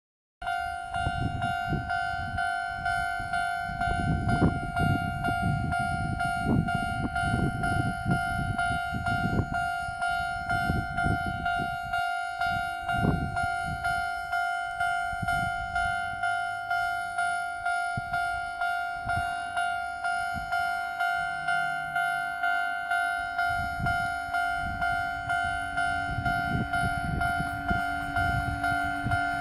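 Japanese level-crossing warning alarm of the old standard type, its electronic bell striking evenly at about three strikes every two seconds. A low rumbling noise sits under it in the first half, and a low steady hum joins in during the second half.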